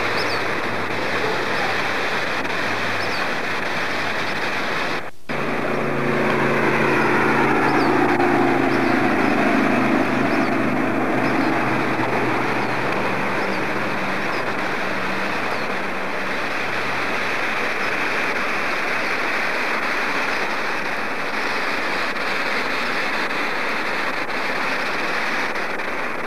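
Steady rushing of river water. After a short dropout about five seconds in, an engine passes, its pitch slowly falling over several seconds as it goes by.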